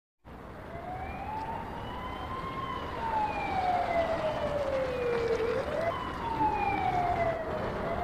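Police siren wailing, its pitch rising and falling slowly, a few seconds per sweep, over a steady background hiss.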